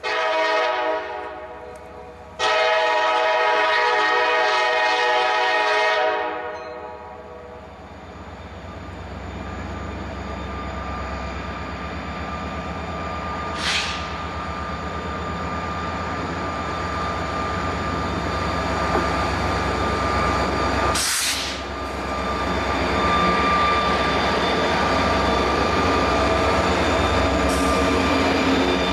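Two EMD SD40-2 diesel locomotives pulling a freight train. A short horn blast is followed about two seconds later by a longer one. Then the engines work under load, the rumble growing louder as the locomotives come close by, with a steady high whine over it.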